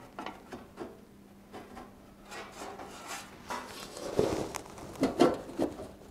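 Sheet-metal panel being handled and shifted on a rusty steel inner fender: scattered light knocks, taps and rubbing, with a few louder knocks between about four and five and a half seconds in.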